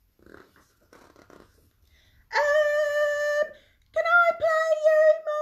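Soft rustle of a book page being turned, then a woman singing two long, steady notes, the second held longer with a slight waver.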